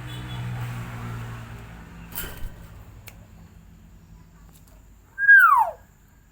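Hill myna giving one loud whistle that slides steeply down in pitch, about five seconds in. Before it, a low hum fades away, and there is a sharp click about two seconds in.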